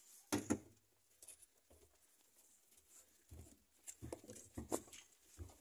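Soft knocks and scuffling in a wooden rabbit hutch, with two louder knocks about half a second in and a cluster of knocks between four and five seconds.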